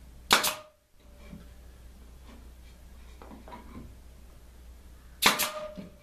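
Pneumatic brad nailer firing twice, about five seconds apart, each shot a sharp crack with a short ring, driving brads into old pine boards.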